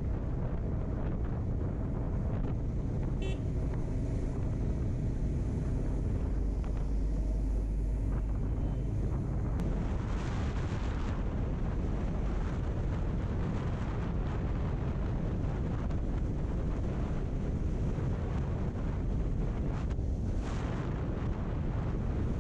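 Motorcycle riding at steady highway speed: wind rushing over the microphone mixes with a low, even engine and road drone. Two brief louder hissing swells come about halfway through and near the end.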